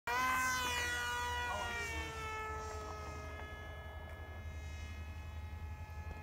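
High-pitched whine of an RC flying wing's 4000 kV brushless motor spinning a 6x5 propeller at about 50,000 rpm, starting suddenly, dropping in pitch over the first two seconds and then holding steady.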